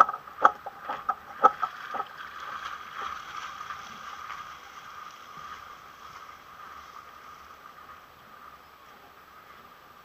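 Water sloshing and gurgling against a catamaran's hull at the water's edge, with a few sharp knocks in the first two seconds, then fading to a softer steady wash.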